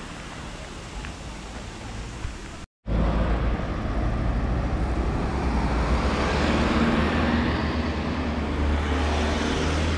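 Town street traffic: quieter street noise at first, then, after a sudden cut about three seconds in, louder traffic with a car passing close alongside and a steady low rumble, heard from a moving bicycle.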